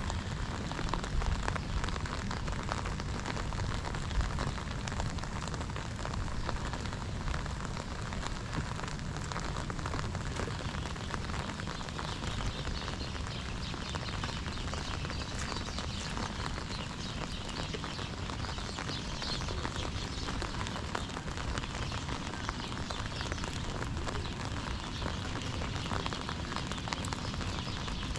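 Steady rain falling on wet pavement and puddles: an even hiss made of many fine drop ticks, with a low rumble underneath.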